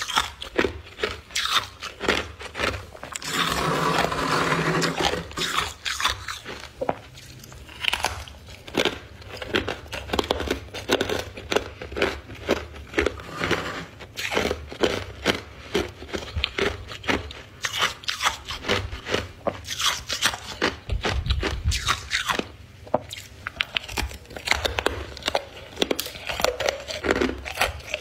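Ice being bitten and chewed close to the microphone: frosty humidifier ice and chunks of clear ice crunching in a quick, irregular run of sharp cracks. About 3 to 5 seconds in comes a longer, louder stretch of continuous crunching.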